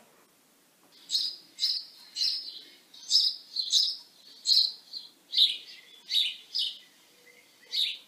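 A recording of house sparrow calls played back: a run of short, high chips at about two to three a second, starting about a second in.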